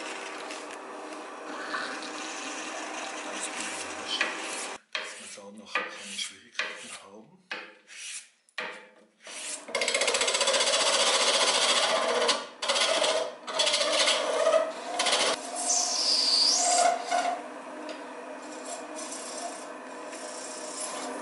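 Wood lathe motor running. Then a pipe part is rubbed back and forth by hand on a sheet of sandpaper in separate strokes with short pauses. Then a turning tool scrapes the spinning wooden pipe shank on the lathe, loud and steady with a brief high squeal, before the lathe runs on more quietly.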